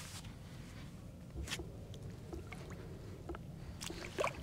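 Bare feet being lowered into a shallow spring pool: faint sloshing with a few small splashes, one about a second and a half in and several close together near the end.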